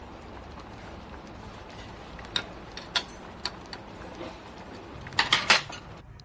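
Metal chopsticks clicking against a ceramic bowl as fish is picked apart: a few separate clicks, then a quick run of louder clinks a little after five seconds in as the dish is handled, over a steady low hiss.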